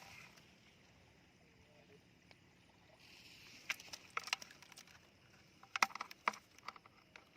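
Shallow sea water splashing: a faint hiss, then a scatter of short splashes and clicks starting about halfway through, the loudest cluster near the end.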